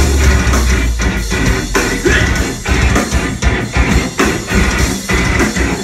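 Live metalcore band playing loud: distorted guitars, bass and drum kit, with the full band coming in together all at once at the start.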